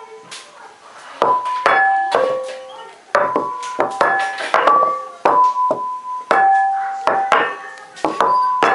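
Plates struck one after another, each ringing a clear bell-like note of its own pitch, about fifteen strikes in an uneven rhythm that make a simple tune.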